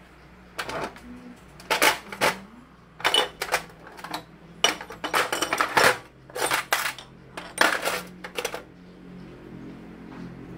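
Small metal parts clinking and clattering as they are handled and set down, in a string of short, sharp bursts that stops about two seconds before the end.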